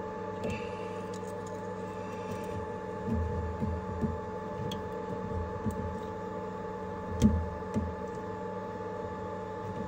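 Steady multi-tone hum from the CNC mill, with handling knocks and clicks as a small spindle fan is fitted by hand onto the spindle; a sharp click about seven seconds in is the loudest.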